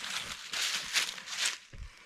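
Hiking boots scuffing and stepping on smooth rock during a careful descent: a few short gritty scrapes, then a dull thud near the end.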